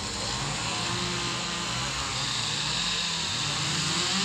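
Background chatter of distant voices over a steady low mechanical hum, at an even level.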